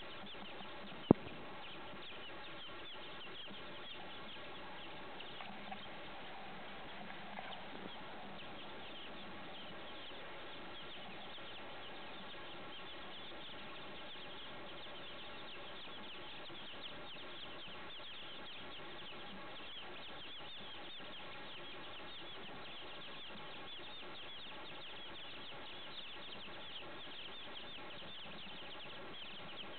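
A brood of some fifty baby chicks peeping nonstop, many short, high, falling peeps overlapping into a steady chorus. A single sharp click sounds about a second in.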